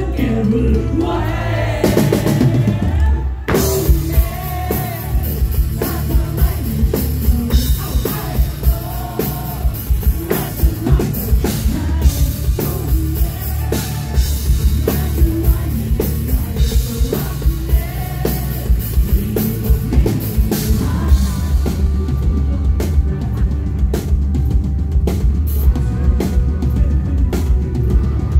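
Live rock band playing loud: electric guitars, bass and a drum kit under a male singer. The cymbals and full band come in hard about three seconds in.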